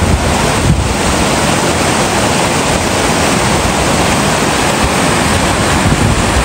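Rocky mountain stream rushing over boulders: a loud, steady wash of white water.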